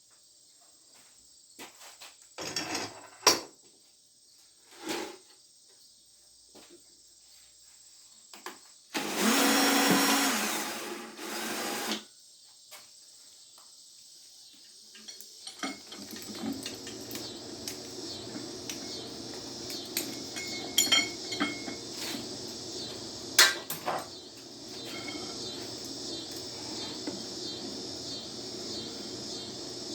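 Scattered knocks and clanks in a workshop, then a loud whirring for about three seconds, and from about halfway a steady motor running with clinks over it.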